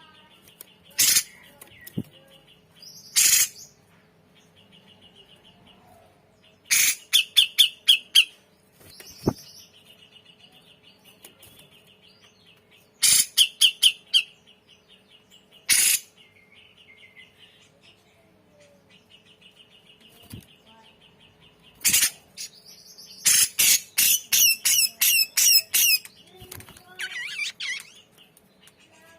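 Cucak jenggot (grey-cheeked bulbul) calling with loud, sharp notes, some single and some in quick runs of six to eight. A faint steady high trill carries on between the bursts.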